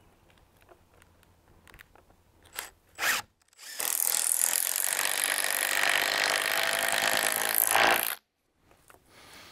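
Cordless drill driving a 6-inch, 5/16-inch star-drive structural screw through a glulam beam into the wooden yoke: a short burst about three seconds in, then a steady whir for about four and a half seconds that cuts off suddenly as the screw seats tight.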